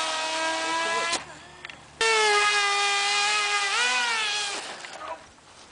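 A homemade foam RC plane's motor and propeller whining at a steady pitch. The whine cuts off abruptly about a second in and comes back just as abruptly a second later. Near four seconds in its pitch wavers up and down, then it dies away.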